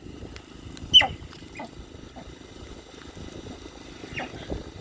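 Sika deer giving alarm whistles. There is one loud, short whistle about a second in that slides steeply down in pitch, followed by a few fainter falling whistles. The whistle is the deer's danger call.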